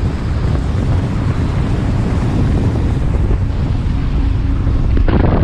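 Speedboat running at speed across open sea, with heavy wind buffeting the microphone over the engine and water noise; a loud, steady rumble.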